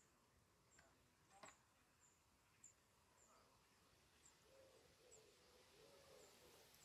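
Near silence: faint outdoor ambience with small, faint bird chirps repeating, and from about halfway a faint low wavering call.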